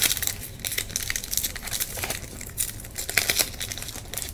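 Foil wrapper of a 1996-97 Topps Finest Basketball card pack crinkling and being torn open by hand: a run of irregular sharp crackles.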